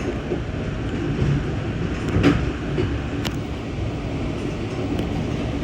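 Steady low rumble of a moving Siemens passenger coach heard from inside, wheels running on the rails, with two sharp clicks about a second apart near the middle.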